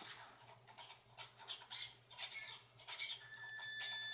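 Irregular small clicks and squeaks from the Traxxas Slash RC truck's steering servo, which is twitching under phone-tilt control. About three seconds in, a steady high whine from the truck's electric drive motor starts while the truck is still standing.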